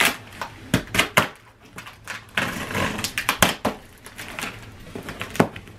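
Cardboard shipping box being opened by hand: flaps pulled back and the cardboard crackling and scraping, with several sharp knocks and clacks as it is handled.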